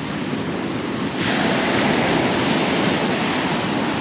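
Waves breaking on the shore, a louder wash of surf rising about a second in, with wind buffeting the microphone.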